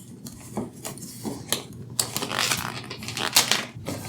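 Takeaway food containers being handled and opened: a run of irregular clicks and crinkles from the containers and lids, busiest around the middle.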